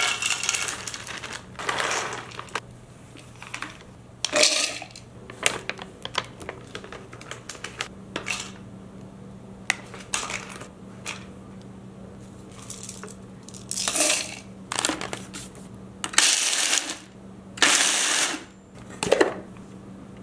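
Dry nuts and seeds are poured into a plastic food processor bowl, clattering and rattling. Near the end come a few short, louder bursts of noise as the Ninja processor pulses and chops them.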